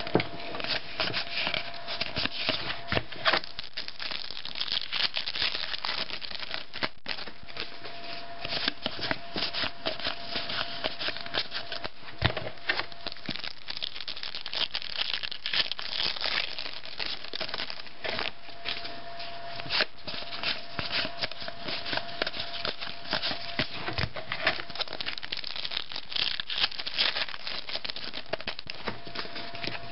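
Trading-card pack wrappers crinkling and tearing as packs are opened, mixed with cards rustling and flicking as they are handled, in a steady stream of small crackles and clicks. A faint steady hum comes and goes in the background.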